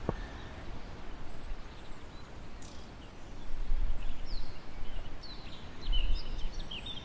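Small birds chirping in short rising and falling calls from about four seconds in, over a low rumble, with a faint high note repeating about twice a second.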